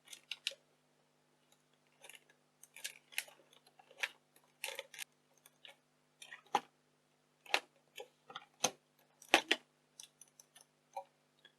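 Irregular plastic clicks and light knocks from handling a 1980s Yashica Video 8 camcorder and pressing its controls, about a dozen separate clicks at uneven spacing, over a faint steady hum.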